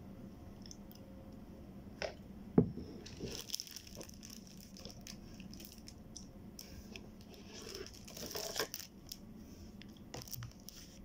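Eating from a paper ice cream cup with a wooden spoon: scraping and crinkling of the cup and mouth sounds of chewing, with scattered clicks and one sharp knock about two and a half seconds in.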